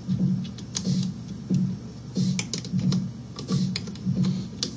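Small hex driver turning a screw into a scale RC crawler chassis: light clicks and scrapes of the tool on the screw and parts, about two a second.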